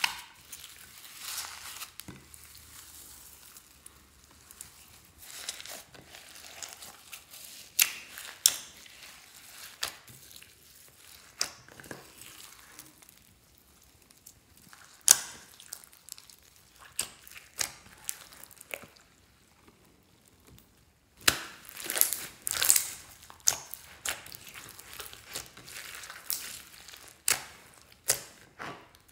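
Hands squishing, stretching and folding clear slime packed with foam beads and glitter: crunching and crinkling with many sharp clicking pops, and a short quiet pause about two-thirds of the way through.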